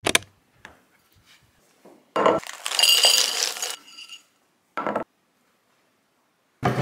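Ceramic dog bowl clinking as it is handled and filled. There is a sharp clink at the start, then dry kibble rattling into the bowl with a ringing tone for about a second and a half, and shorter clatters later on.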